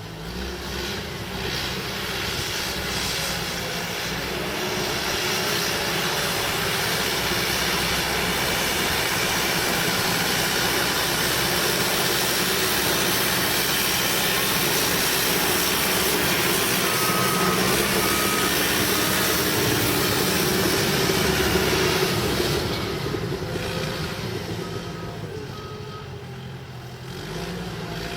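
Cat D5K crawler bulldozer's diesel engine working under load, growing louder and holding strong for most of the stretch, then easing off about three-quarters of the way through before picking up again at the end. Short repeated beeps come in two runs in the later part.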